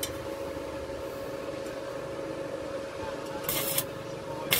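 Electric arc welding on a truck chassis: a short burst of sizzling crackle about three and a half seconds in and a brief second one near the end, over a steady hum.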